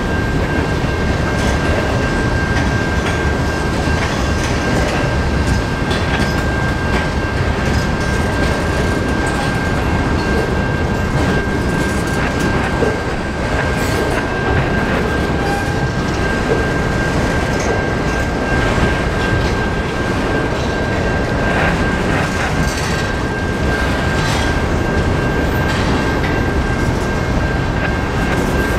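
Canadian Pacific freight train rolling past at close range, its cars clattering over the rails. A steady high-pitched squeal runs throughout.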